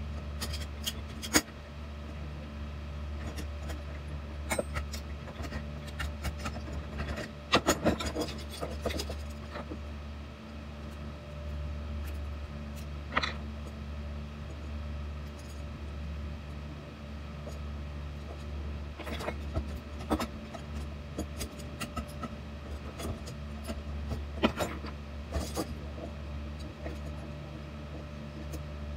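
Scattered metal clicks and light knocks of a Harken roller-furler drum and its link plates being handled and worked by hand, over a steady low hum.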